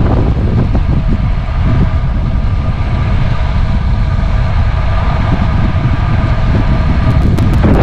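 Wind rushing over the camera microphone and road noise while riding a road bike at speed, with a steady hum under it and a run of sharp crackles near the end.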